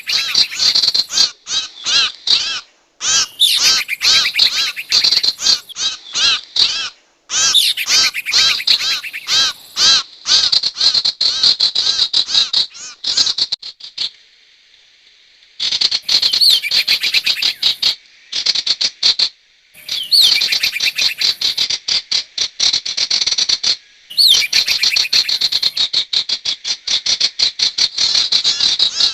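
Lure-call recording of the sirtu bird: a fast, continuous series of sharp high chirps, many per second, with a brief pause about halfway through.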